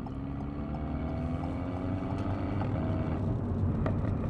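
Alpine A110's 1.8-litre turbocharged four-cylinder engine and exhaust in Sport mode, heard from inside the cabin as the car accelerates. The revs rise, fall back about three seconds in as it shifts up, then climb again.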